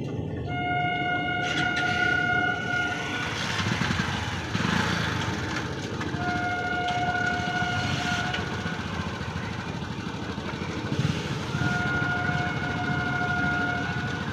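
Train horn sounding three long, steady blasts a few seconds apart, over the low rumble of the train at a level crossing.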